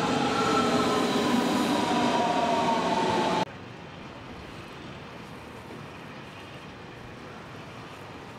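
Berlin S-Bahn class 481 electric train pulling into the platform, its motors whining in several tones that fall slowly in pitch as it slows to a stop. About three and a half seconds in, the sound cuts off suddenly and gives way to the fainter, steady rumble of another S-Bahn train approaching in the distance.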